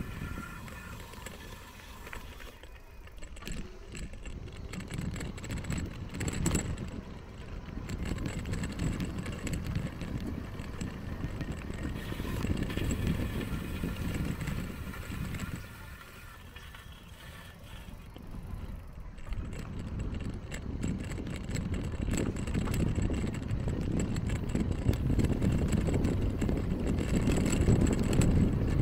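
Wind buffeting the microphone of a bicycle-mounted camera, with tyres rolling on a paved path, while an electric-assist bicycle is ridden. The rumble eases for a few seconds in the middle and grows louder near the end.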